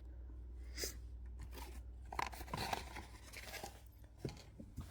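Faint rustling and crinkling of blind-box packaging being handled, with scattered small clicks and crackles.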